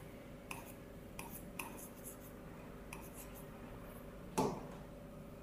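Stylus writing on an interactive display screen: faint taps and light scrapes of the pen tip on the glass, with a louder knock against the board about four seconds in. A faint steady hum runs underneath.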